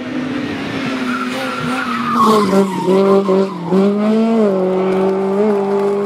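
Race car engine running hard, then dropping in pitch through several quick downshifts about two seconds in, with a brief tyre squeal. It then picks up and holds a steady note under load.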